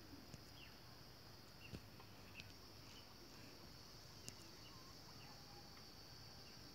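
Near silence: a faint, steady, high insect drone, with a few faint short chirps and ticks.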